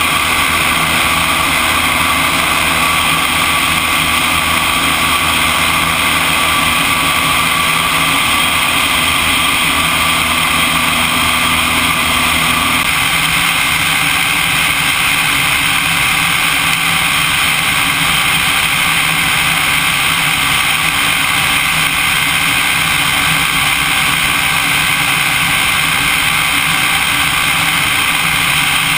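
Light airplane's piston engine and propeller running at climb power, mixed with loud wind rushing past a camera mounted outside on the wing strut. About 13 seconds in the engine's lower tone changes, as with a power reduction after takeoff.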